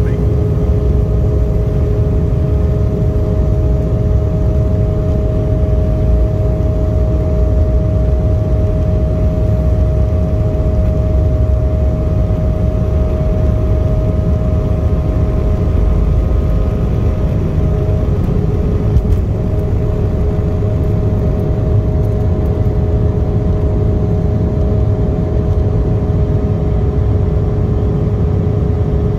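Cabin sound of an Embraer 175 with its GE CF34 turbofan engines running: a steady whine of held tones over a heavy rumble. One of the tones drops away about two-thirds of the way through.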